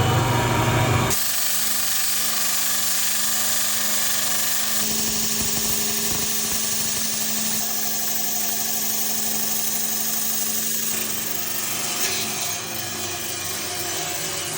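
Rock saw running and cutting through a soft rock: a steady hum and hiss. The tone shifts about a second in and again around five and eleven seconds in.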